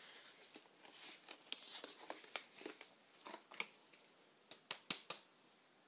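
Thin disposable gloves crinkling and rustling as they are pulled on and the gloved hands move, with many small clicks. Near the end come three sharp knocks as a small ceramic ramekin is handled and put down on the table.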